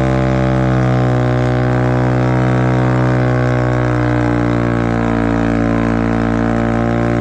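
Motorcycle engine held at a constant throttle during a rear-wheel burnout: a steady, unwavering drone that cuts off abruptly at the end.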